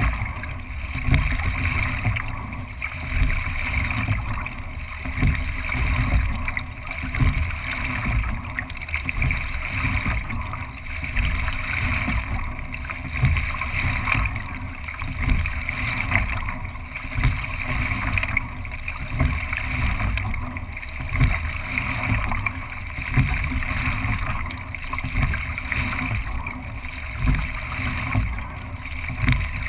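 Racing single scull under way: water rushing past the hull and the oars working the water, the noise swelling once per stroke, about every two seconds.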